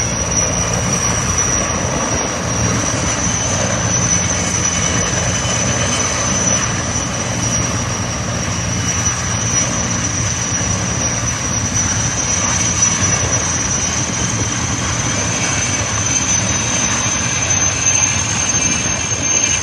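Helicopter running steadily, its rotor and engine noise constant with a steady high whine through it.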